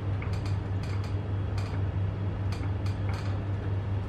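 Irregular light clicks from a laptop's keys and trackpad being worked, over a steady low hum in the room.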